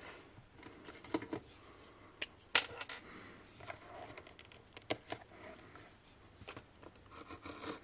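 Small cardboard box being handled and opened by hand: scattered light clicks and taps of the card and its flaps, with faint rustling in between.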